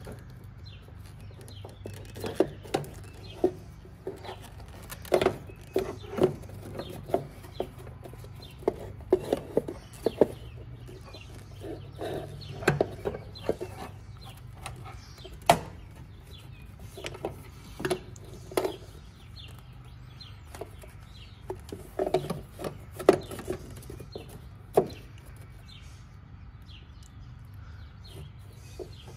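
Irregular clicks and knocks of metal parts being handled as a clutch master cylinder assembly and its linkage are fitted back through a car's firewall, over a low steady hum.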